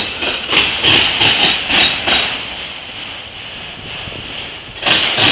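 CSX autorack freight cars rolling past close by, their steel wheels clacking over the track in clusters as each car's wheel sets go by, over a steady high hiss of wheels on rail. The clacking eases off a little past halfway and comes back loud near the end.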